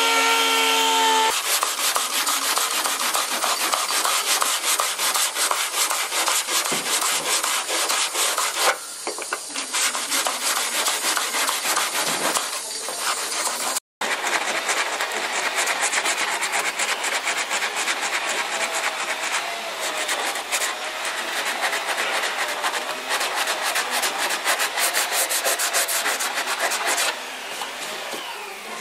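Hand sanding of a Mustang trunk lid's seam edge with an abrasive pad: fast, continuous rubbing strokes of abrasive on metal. For the first second or so a pneumatic orbital sander whines, then it stops.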